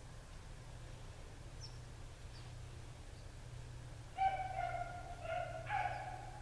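Hound baying on the trail of a swamp rabbit: about three drawn-out, mid-pitched bawls starting about four seconds in. Two faint, high bird chirps come earlier.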